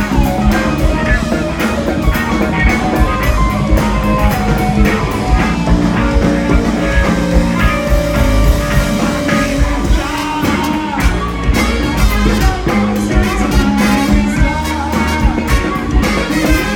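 A live rock band playing loudly: electric guitars, bass and drums driving a steady beat, with a singer's voice over the band, heard from the audience.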